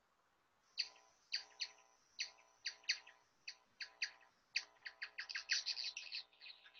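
Bat echolocation clicks, ultrasound brought down to audible pitch, heard as short downward-sweeping chirps at about two a second. From about five seconds in they crowd into a dense rapid run as the bat closes on a Bertholdia trigona tiger moth, which emits its own clicks.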